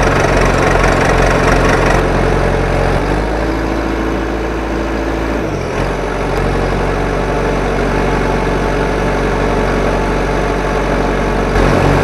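Heavy vehicle engine running steadily, its note shifting about three seconds in and again about halfway through.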